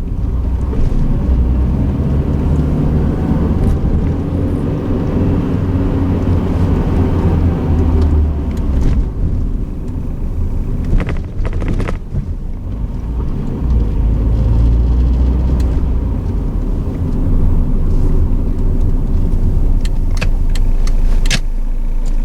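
A 1989 Honda Accord's four-cylinder engine running under way, with steady low road rumble and a few sharp knocks, clustered near the end. The deep rattling knock is the sign of a failing water pump pulley.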